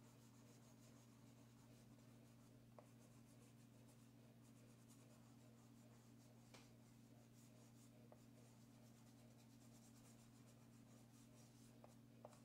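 Faint scratching of a chalk pastel stick rubbed back and forth across black paper, filling in an area of colour, over a steady low hum, with a few faint ticks.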